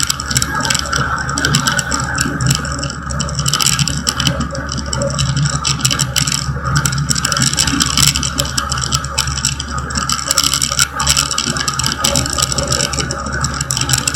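Light aircraft's piston engine droning steadily, heard from inside the cabin, with light rattling throughout.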